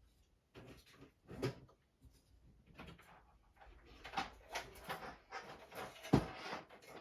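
Irregular rustling, clicks and light knocks of CPU-cooler parts and packaging being handled.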